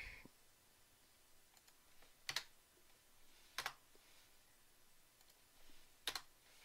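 Near-silent room tone broken by three short, sharp computer input clicks, the last a quick double.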